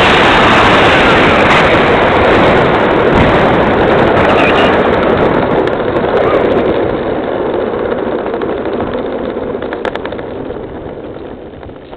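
Loud rushing noise from a Freewing Yak 130 electric ducted-fan RC jet together with gusty wind on the microphone, dying away steadily over the second half.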